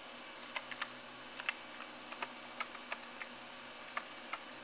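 Computer keyboard keys pressed one at a time: about a dozen unevenly spaced clicks, slow because the typing is done with one hand, over a faint steady hum.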